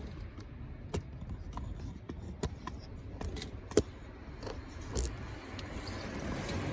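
Scattered light metallic clinks and taps, a dozen or so at uneven intervals with the sharpest a little before the middle, over a low steady rumble: tools or metal parts being handled during an oil and filter change.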